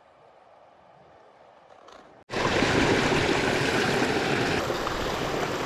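Quiet for about two seconds, then river water rushing loudly and steadily, starting abruptly.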